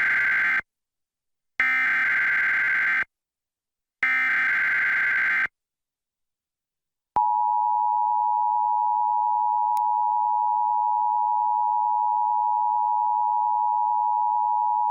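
Emergency Alert System broadcast tones for a Required Monthly Test. Three bursts of SAME digital header data, each about a second and a half long with a short gap between them, the first already under way. After a pause, the steady two-tone attention signal (853 and 960 Hz) begins about seven seconds in and holds.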